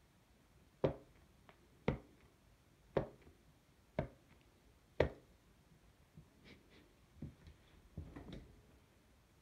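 Rubber sole of a canvas high-top sneaker tapping on a laminate floor: five sharp taps about a second apart, then softer scuffs and shuffles of the shoes on the floor near the end.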